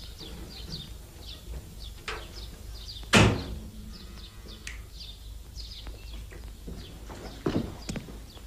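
Small birds chirping throughout, and about three seconds in a car door is slammed shut with one loud bang.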